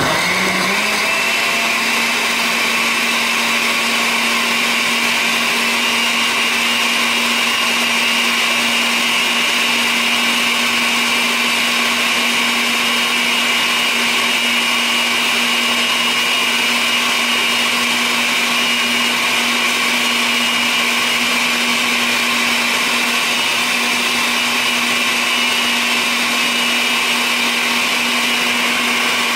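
Oster countertop blender running on its milkshake setting, blending milk, yogurt and fruit. The motor comes up to speed within the first second, then holds a steady pitch.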